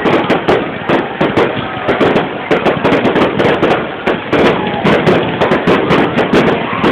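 Fireworks going off in a dense, rapid barrage: sharp bangs and crackles several times a second without a break.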